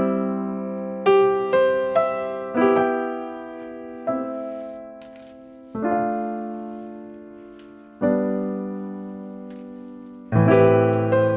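Background music: a slow, gentle piano piece of single notes and chords, each struck and left to ring and fade, with a fuller, louder chord near the end.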